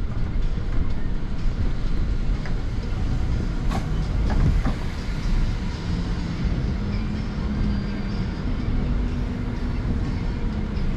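A London bus driving, heard from inside: a steady low engine and road rumble with a drone that holds and shifts slightly in pitch, and a few short knocks or rattles about four seconds in.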